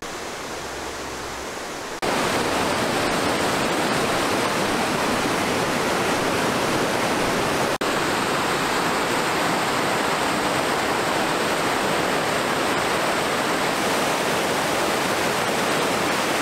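Whitewater rapids rushing over rocks in a river: a loud, steady roar of water that begins about two seconds in, after a quieter stretch, with one momentary break near the middle.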